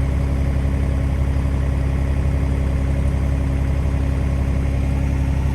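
Heavy machine's engine idling steadily, a low even throb with no revving.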